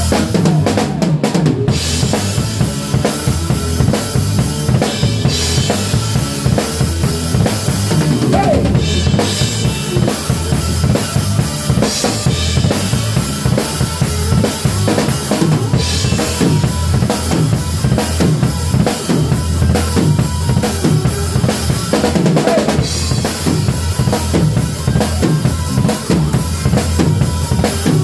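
Acoustic drum kit played continuously in a driving groove, with bass drum, snare and cymbals.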